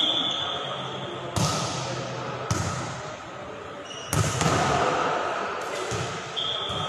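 A volleyball struck hard three times in an echoing sports hall, the third a spike at the net about four seconds in. A short referee's whistle blast sounds at the very start and another near the end.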